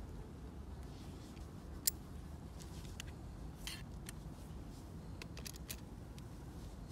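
Metal dirk fittings handled in gloved hands as the blade is drawn from its scabbard: one sharp metallic click about two seconds in, a short scrape, then several light clicks near the end, over a steady low rumble.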